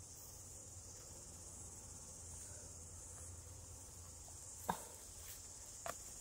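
Faint, steady high-pitched chirring of an insect chorus, with a few light clicks in the last couple of seconds.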